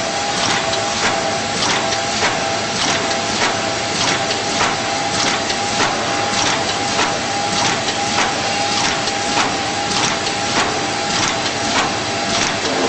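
Automatic four-colour container screen printer running: its mechanism clicks in an even rhythm, a little under twice a second, over a steady tone.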